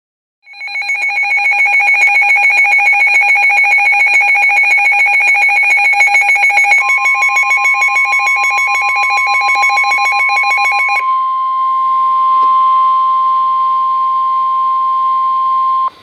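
Weather alert radio sounding a warning: the radio's own alarm, a very rapid two-tone beeping, with the steady 1050 Hz NOAA Weather Radio warning alarm tone coming in about 7 s in. The beeping stops about 11 s in, and the long tone carries on alone until it cuts off abruptly, signalling that a warning broadcast, here a severe thunderstorm warning, is about to begin.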